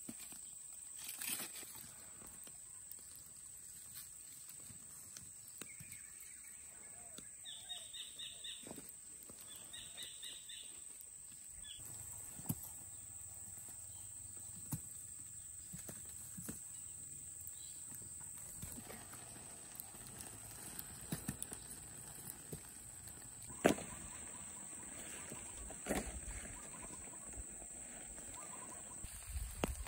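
Charred firewood logs knocked and shifted by hand around a smoking fire pit: scattered wooden knocks and rustles, the loudest about four-fifths of the way in. Under them runs a steady high-pitched whine, with a few short chirps about a third of the way in.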